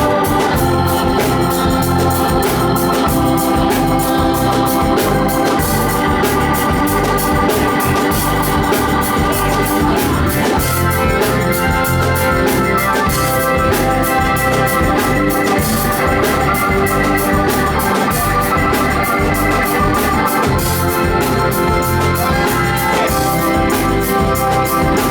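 Blues-rock band playing an instrumental passage live, with held organ chords over a pulsing bass line and steady drums.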